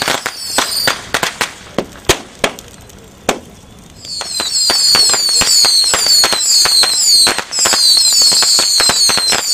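Strings of firecrackers popping in rapid crackling runs. Near the start they thin out to a few separate bangs, fall quiet for about a second and a half, then break into a dense, loud crackle again about four seconds in.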